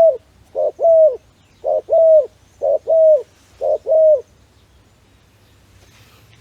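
Dove cooing: a string of about five calls, each a short note followed by a longer note that rises and then falls, about one a second, stopping a little past four seconds in.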